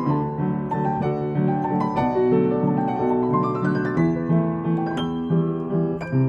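Piano played four hands, a slow, tender melody over repeated low notes, with a rising run of notes about halfway through.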